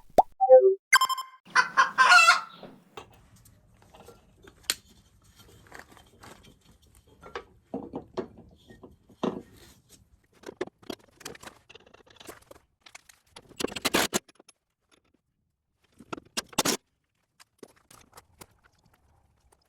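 A short falling whistle-like glide and a brief burst of clucking near the start. Then scattered sharp clicks and knocks of hand tools on the riding mower's metal parts, with two longer scraping bursts past the middle.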